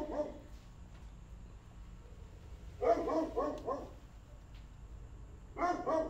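Dog barking in short runs of four or five quick barks, about every three seconds.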